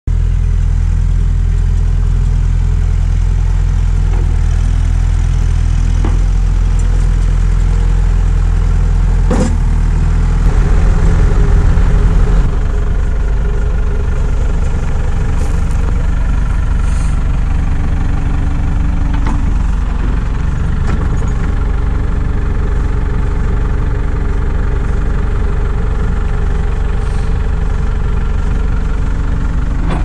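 1999 New Holland 555E backhoe loader's diesel engine running steadily, rising in speed and loudness for about two seconds around ten seconds in, then settling back. A sharp knock stands out a little before that.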